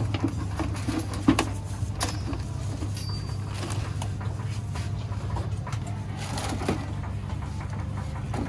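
A few sharp knocks and chops as a long knife cuts the stalks off young green coconuts, the clearest about a second in and another shortly after, over a steady low hum.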